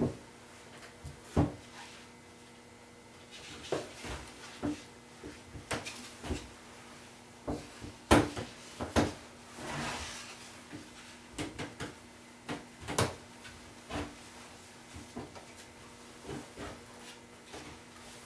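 Waxing iron pushed slowly along a snowboard base, melting hot wax in, with irregular knocks and clicks as the iron and board shift on the bench and a soft rubbing sound about ten seconds in.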